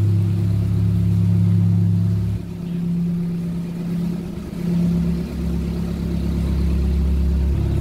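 Narrowboat engine running steadily with a low hum. Its note dips and shifts lower a couple of seconds in, then changes again near the end.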